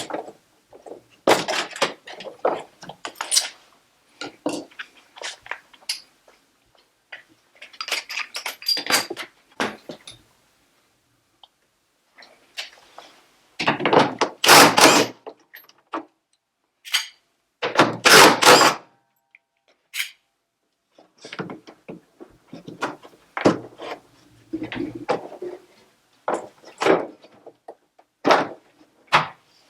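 Knocks, clunks and clattering of parts and tools being handled during the disassembly of a drum washing machine, in irregular bursts with short silences between them; the loudest, longest clatters come twice around the middle.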